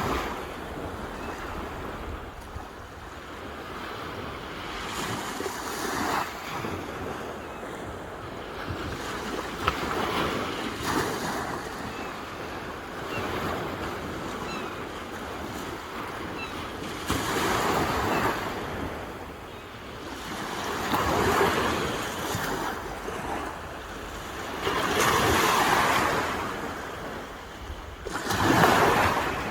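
Sea waves breaking and washing onto a shore. The surf swells and fades every few seconds, with the strongest surges in the second half.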